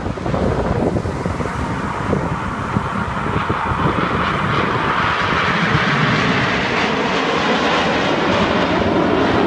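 Aircraft flying past, its engine noise growing louder over several seconds.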